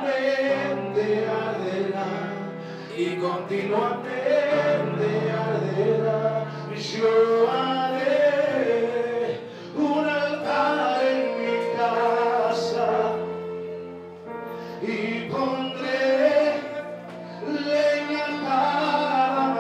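A man singing a worship song through a microphone and PA, in long sung phrases over sustained accompanying chords.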